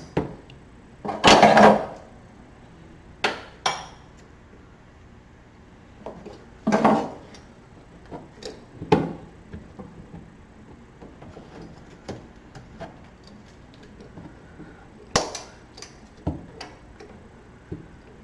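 Metal hand tools and parts clanking and clinking: scattered sharp knocks, with a longer rattling clatter about a second in and another just before seven seconds.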